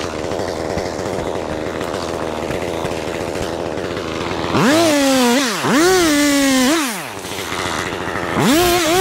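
Chainsaw idling, then opened up to full throttle in two bursts about halfway through and again near the end; in the second burst the pitch sags as the chain bites, cutting a branch from the trunk.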